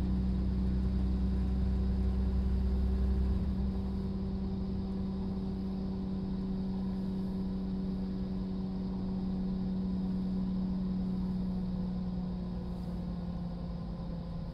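Class 172 Turbostar diesel multiple unit heard from inside while running: the underfloor diesel engine drones steadily over a constant hum and the rumble of the train. About four seconds in, the deep low drone drops away as power is shut off, leaving a lighter hum while the train coasts toward its next stop.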